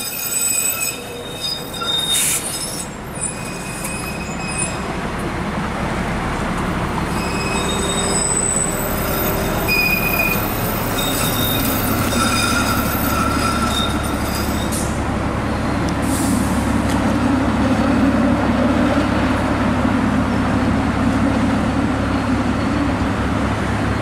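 Steel wheels of a TTC articulated streetcar (ALRV) squealing in thin, high-pitched tones as it rounds the tight curved track of a streetcar loop. The squeals come and go through the first half. After that, steady road traffic noise with a low hum builds.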